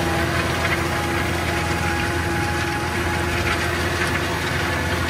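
Tractor engine running steadily under load while pulling a disc harrow through cultivated soil, a constant drone with no change in revs.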